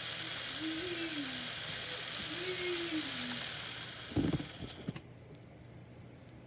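Lego electric motor spinning the fan of a model jet engine with a steady high whirr, which winds down and stops about four seconds in, followed by a few clicks and knocks.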